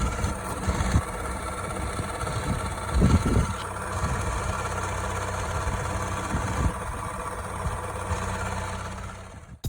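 Peugeot 208 engine idling with a rattle from the accessory belt drive, a clattering the owner blames on a worn friction wheel, water-pump pulley and tensioner. It fades out near the end.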